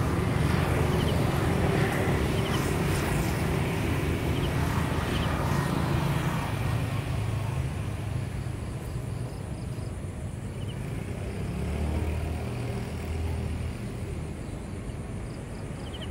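Riverside city ambience dominated by the low rumble of distant road traffic. The rumble eases about halfway through and swells again around twelve seconds in, with a few faint short chirps above it.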